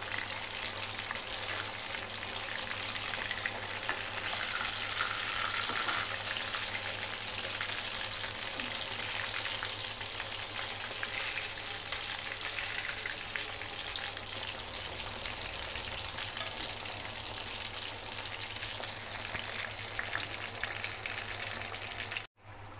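Rohu fish steaks deep-frying in hot oil in a kadhai: a steady sizzle full of small crackles and pops. It cuts off abruptly just before the end.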